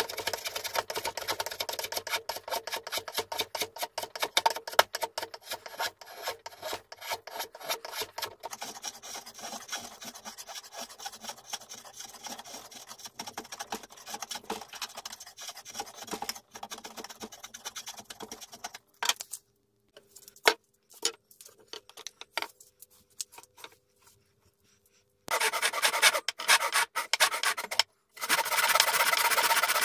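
Hand rasp working a wooden axe handle in quick, steady strokes, shaping it, for most of the stretch, then a few scattered knocks. Near the end a handsaw cuts into the top of the handle in two loud runs of strokes.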